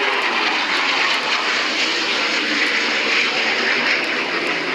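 F-16 fighter jet engine noise passing close by: a loud, steady jet rush, with a tone sliding down in pitch in the first second as the jet goes past.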